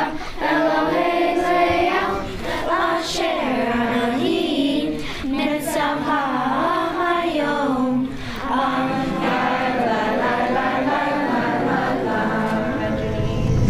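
A group of children and teenagers singing a Hebrew song together in chorus, their young voices holding and changing notes without a break.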